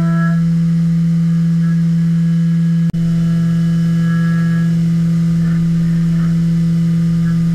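CNC vertical machining centre milling an engine adapter plate under flood coolant: a steady, loud low hum with overtones from the running spindle and cut. It drops out for an instant about three seconds in.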